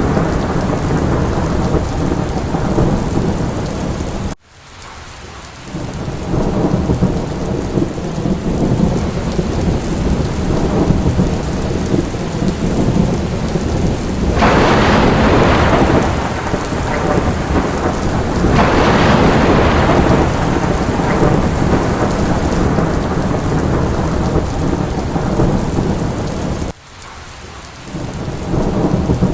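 Steady heavy rain with a deep rumble of thunder beneath it, swelling louder twice around the middle. The whole sound drops away suddenly twice, about four seconds in and near the end, and builds back up within a second or two.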